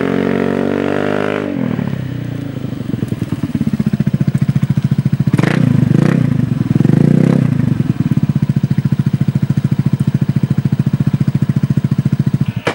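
Honda PCX150's single-cylinder four-stroke engine through a LeoVince GP-Corsa full exhaust: the scooter rides in and slows with its engine note falling, then idles loudly with a rapid even pulse that swells for a few seconds in the middle, and the engine cuts off suddenly at the end.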